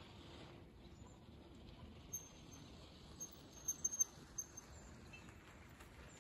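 Faint outdoor ambience with scattered short, high-pitched chirps, a few louder ones around the middle.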